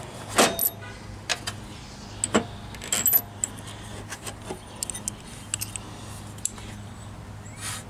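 Scattered metal clinks and taps as steel washers, flange nuts and a long bolt are picked up and handled on a Jeep's painted steel fender, while a third 3/8-inch washer is stacked behind an idler pulley as a spacer. A low steady hum runs underneath.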